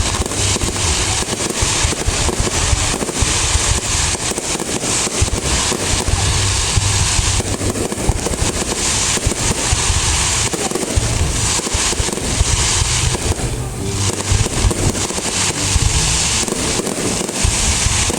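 Fireworks going off in a continuous barrage: dense rapid crackling over frequent deep booms.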